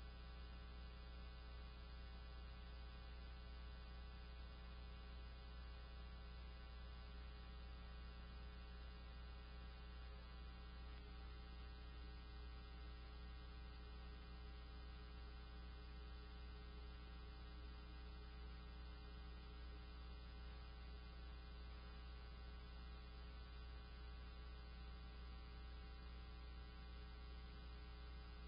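Faint, steady electrical hum with a stack of even overtones, unchanging throughout and with no other sound on top of it.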